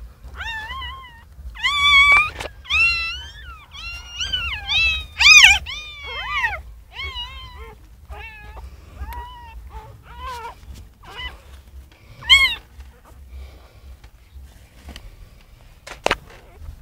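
Newborn puppies squealing and crying: a run of short, high-pitched cries, many falling in pitch, loudest about two and five seconds in and again around twelve seconds. A single sharp click comes near the end.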